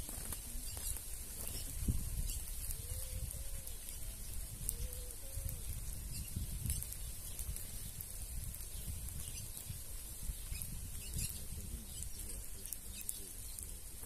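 Mixed flock of red-cowled cardinals and small doves feeding on grain: scattered short high ticks and chirps with wing flutters over a low rumble. A low two-humped call sounds twice, about three and five seconds in.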